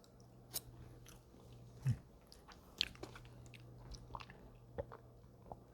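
Quiet chewing and mouth sounds of someone eating, with scattered small clicks and a low steady hum underneath.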